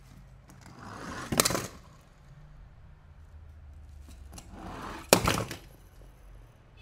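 Plastic toy packaging being handled twice, a few seconds apart. Each time a rustle builds to a sharp crackling snap.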